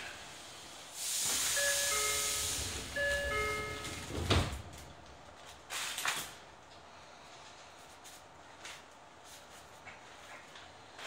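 Train door-closing sequence inside a Toyo Rapid Railway 2000 series car: a two-note ding-dong chime sounds twice over a loud hiss of air from the door engines. The doors shut with a sharp thump about four seconds in, and a second knock follows about two seconds later.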